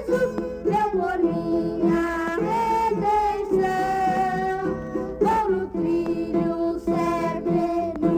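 Hymn music from a 1968 recording by a children's string ensemble, playing on without a break.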